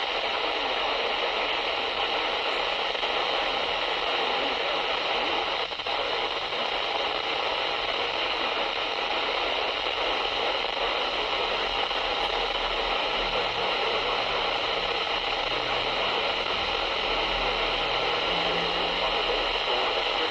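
Radio static: a steady hiss from a receiver tuned to a distant weather-radio station that has faded into the noise, with a brief dip about six seconds in.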